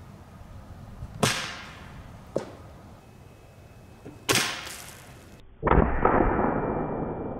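A 10-gauge single-shot shotgun firing a .700 Nitro Express round: a modest pop rather than a big bang, heard three times with a short decaying tail each time, the last deeper and heavier. The oversized cartridge built too little pressure, and the bullet only dribbled out of the barrel with little power.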